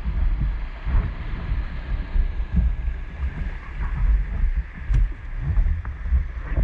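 Wind buffeting the camera's microphone in a low, uneven rumble, over the hiss of river water rushing past an inflatable raft.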